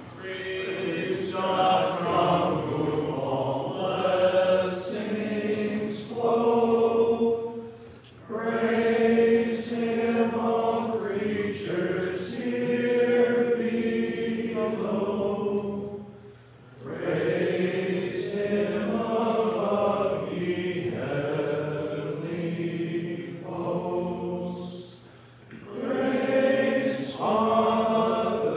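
A group of men singing a closing together in unison, in long held phrases with a short pause for breath about every eight seconds.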